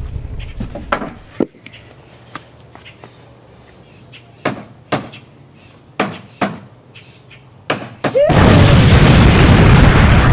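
A hammer knocking on the wooden post of a play structure, a string of sharp separate strikes, several in quick pairs. About eight seconds in, a loud explosion sound effect cuts in and runs on as a sustained rumbling blast.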